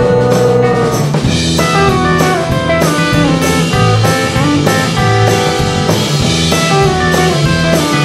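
A band playing an instrumental passage of a song, with drum kit and guitar over a steady beat. A long held note ends about a second in.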